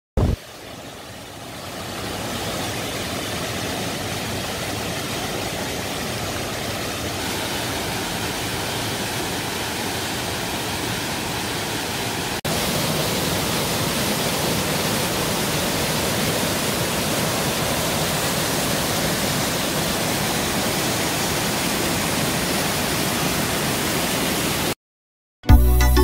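Waterfall cascading down steep rock slabs: a steady rush of white water. It fades in over the first two seconds, gets louder about twelve seconds in, and cuts off just before the end.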